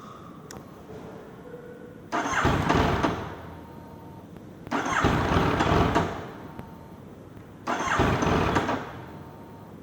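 Yamaha MT-09 three-cylinder engine being cranked by its starter three times, each attempt lasting about a second to a second and a half and stopping without the engine running on: hard starting when hot, after a 30-minute ride.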